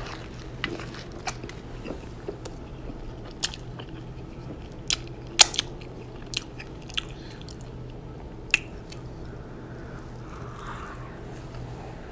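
Close-up mouth sounds of biting and chewing a fried breaded fish taco in corn tortillas, with about ten sharp, irregular crunches. The loudest crunch comes a little past the middle.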